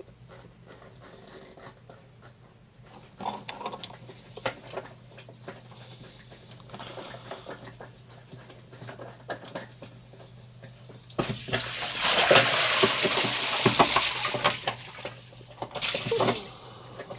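Seawater hissing in past a sailboat's paddlewheel speed sensor as it is unscrewed from its through-hull fitting, with small clicks of handling. About eleven seconds in the sensor comes out and seawater gushes up through the open hole for about three seconds until the hole is plugged. A shorter splash comes near the end.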